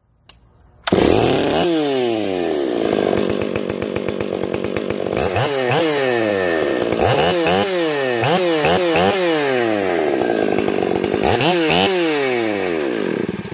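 Ported Stihl MS 461 two-stroke chainsaw with a dual-port muffler, running and being blipped: it revs up and drops back to idle again and again, holds a high rev for about a second a couple of seconds before the end, then stops.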